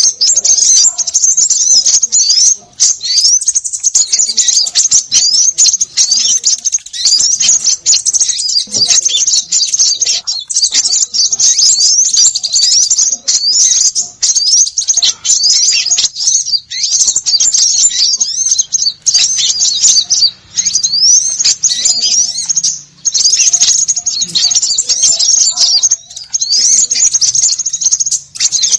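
A noisy flock of small birds chirping all at once, a dense, unbroken stream of high, quick, rising chirps. It is a bird-lure call track meant to draw small birds.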